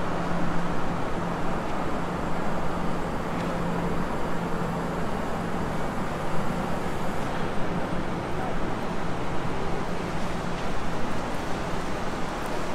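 City street traffic: a line of cars idling and creeping along a narrow street, a steady noise with a constant low hum throughout.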